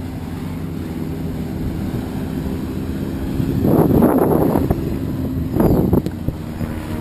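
Motorboat engine running steadily, with two louder bursts of splashing water and wind noise as the boat crosses a wake: a longer one about three and a half seconds in and a short one near six seconds.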